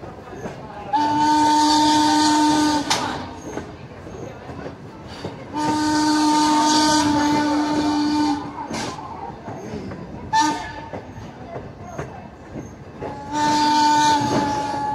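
Steam whistle of Norfolk and Western 4-8-0 steam locomotive #475 blowing long, long, short, long: the standard signal for a grade crossing. Each long blast is a steady chord of two notes with a hiss of steam, and the last runs on past the end. Between the blasts the cars rumble along the track.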